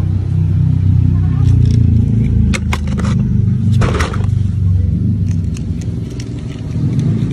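A steady low rumble, with a few sharp clicks and a clatter in the middle as small toy cars are handled and set down on a wooden plank.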